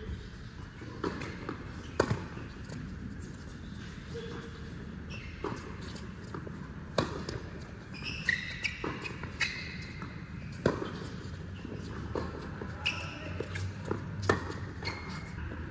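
Tennis rally: sharp pops of rackets striking the ball and of the ball bouncing on the court, coming at uneven intervals of about a half second to a second and a half.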